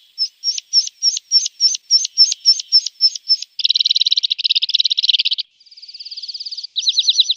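Javan bush lark (branjangan) singing. A run of sharp repeated chirps, about four a second, breaks into a dense fast trill about halfway through, then a softer rapid ticking and a quick series of down-slurred notes near the end.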